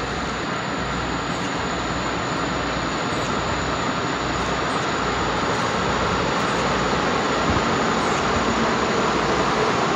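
Passenger train hauled by an EP07 electric locomotive approaching, its running noise a steady even rush that slowly grows louder.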